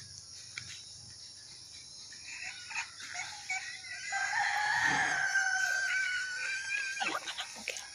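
A rooster crowing once: a single long call of about three seconds starting roughly halfway through, over a steady high chirring of insects.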